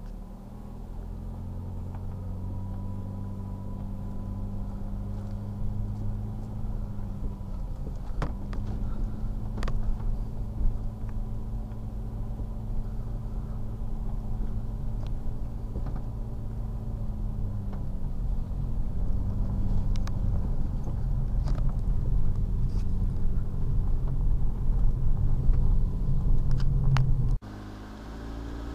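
A car driving: steady engine hum and road rumble, with a few sharp clicks or knocks scattered through it. The noise drops off sharply near the end.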